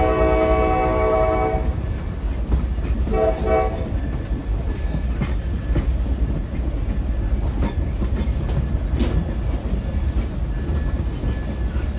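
Amtrak ALC-42 Charger's horn sounding a long chord, then a short second blast about three seconds in, over a steady low rumble with irregular clicks from the train's wheels on the rails.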